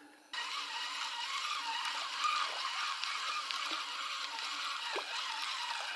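Small shallow river running over a riffle: a steady bubbling hiss of water that starts abruptly a moment in, with a few faint small splashes.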